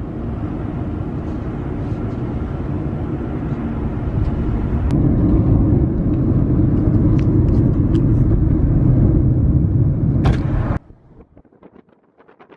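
A steady low rumble that grows louder about five seconds in, with a few faint clicks, and cuts off abruptly near the end.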